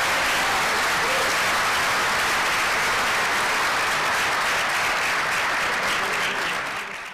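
An audience applauding steadily, fading out near the end.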